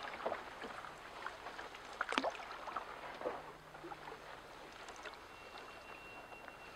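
Canoe paddle dipping and pulling through calm water, with small splashes, drips and water lapping at the hull; the sharpest splash comes a little after two seconds in.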